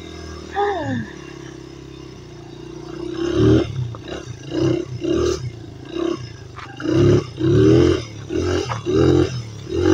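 Dirt bike engine, just started: a quick rev about half a second in that falls back to a steady idle, then from about three seconds in a run of short throttle bursts, one or two a second, as the bike pulls away.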